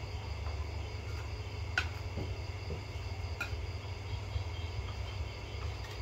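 Crickets chirring steadily in the background over a low hum, with two light clicks of metal spoons on plates during the meal.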